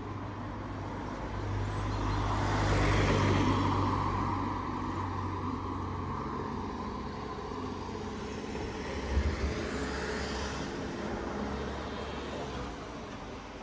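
A car passing by on the road: engine and tyre noise swell to their loudest about three seconds in, then fade. Another vehicle goes by more faintly later, with a brief low thump around nine seconds.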